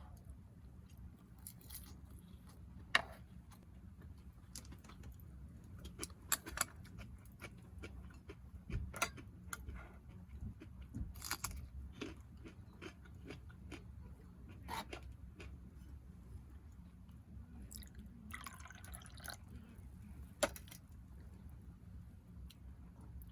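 Someone eating: chewing, with scattered light clicks and taps, and a short rustle near the end.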